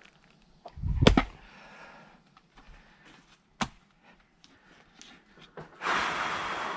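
An axe strikes a log of firewood about a second in: a heavy thud with a quick crack or two as the wood splits. A single sharp knock comes a couple of seconds later, and near the end there is a hiss of noise lasting about two seconds.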